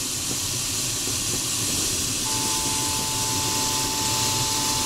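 Steady rushing hiss of airflow around an LS-4 glider's cockpit canopy in cruise flight, with a low rumble underneath. A single steady tone comes in a little over two seconds in and holds.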